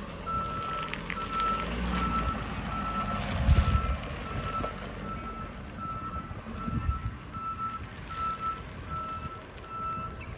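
Truck backup alarm beeping steadily, a single tone repeating a little more than once a second, as the 2015 Ford F550 Super Duty bucket truck reverses. Its 6.7 L V8 diesel runs underneath, with a louder low thud about three and a half seconds in.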